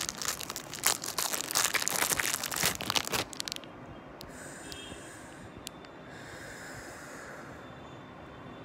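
Clear plastic wrapping crinkling as it is handled and pulled off a small part. The crinkling is dense and loud for the first three and a half seconds, then gives way to a few soft rustles and clicks.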